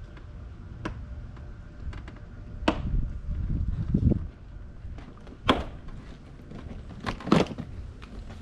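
Scattered clicks, knocks and rustling of hands working at a BMW K1600GT motorcycle's seat and the plastic around it, with a sharp click about halfway through and a double knock near the end.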